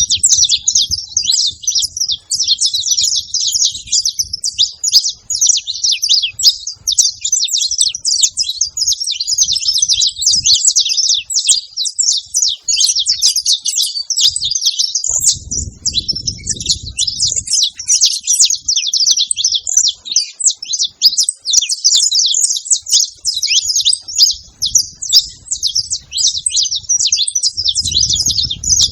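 A pair of saffron finches, female and male, chirping and singing continuously in rapid, overlapping high-pitched notes.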